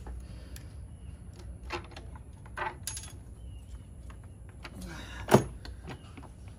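Scattered clicks and knocks of hands working a tube and engine parts into place in an engine bay, with one louder knock about five seconds in.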